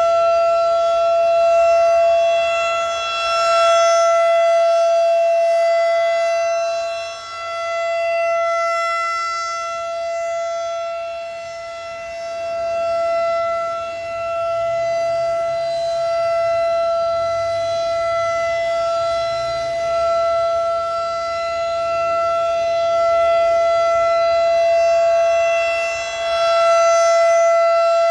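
Federal Signal 2001-DC outdoor warning siren sounding its steady alert tone for a monthly test: one unwavering high pitch with overtones, swelling louder and fading as the rotating siren head turns toward and away.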